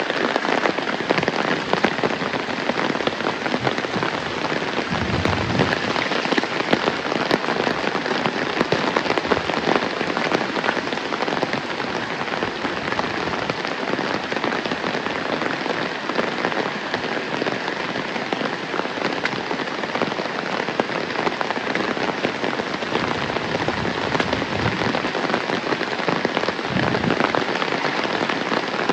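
Heavy rain falling steadily, a dense, even patter of drops.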